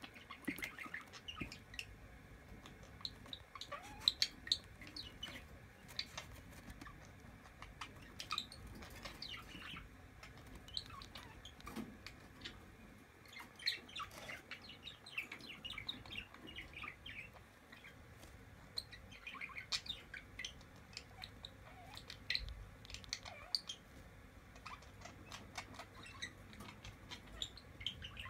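A two-day-old quail chick peeping: short high chirps in irregular clusters, some sliding in pitch.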